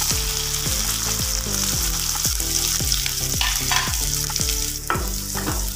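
Chopped small onions (shallots) sizzling in hot oil with popped mustard seeds as they are stirred in the pan: a steady high frying hiss.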